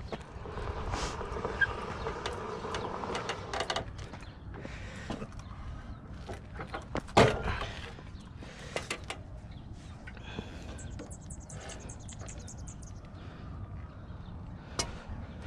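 Irregular clicks and knocks, with one loud knock about seven seconds in and a quick run of fine ticks a few seconds later, from a pocket bike being handled after its drive belt ripped off and it locked up.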